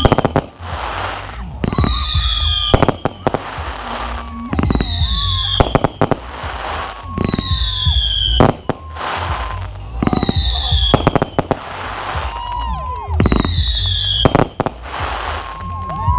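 Fireworks bursting in sharp bangs, heard over loud dance music with a heavy bass and falling whistle-like sweeps that repeat every two to three seconds.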